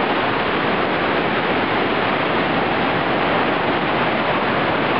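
Small surf waves breaking and washing around concrete pier pilings: a steady, unbroken rush of water.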